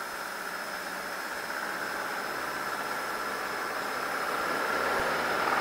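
Cessna 150's four-cylinder Continental O-200 engine at takeoff power during the takeoff roll, heard inside the cabin: a steady drone that grows slowly louder.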